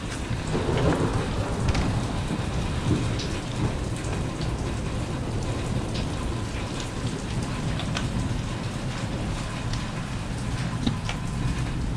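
Heavy thunderstorm rain falling steadily, with scattered sharp drop hits and a low rumble underneath.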